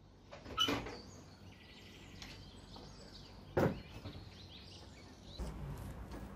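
Faint room ambience with birds chirping outside, broken by two sharp knocks, one about half a second in and a louder one about three and a half seconds in; a low rumble comes in near the end.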